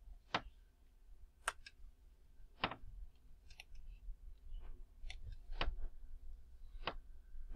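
Computer mouse clicking: a few single, sharp clicks spaced a second or more apart.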